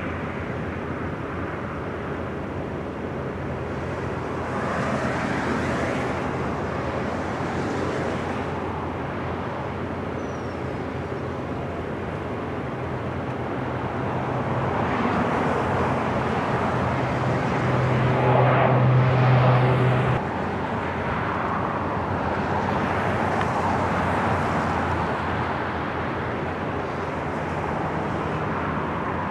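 Four-engine Lockheed C-130 Hercules turboprops droning through takeoff and climb-out: a steady low propeller hum over engine noise, which swells to its loudest a little past halfway and then drops off suddenly about two-thirds of the way in.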